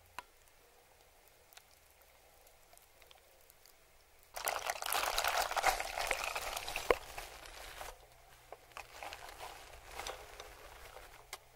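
Shredded cheese being dropped onto melted cheese sauce in a frying pan. It starts suddenly about four seconds in as a loud crackling rustle, then goes on in softer, patchy rustles.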